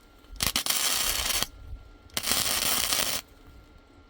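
MIG welder laying two short tack welds on a steel frame, each a burst of crackling arc sizzle about a second long.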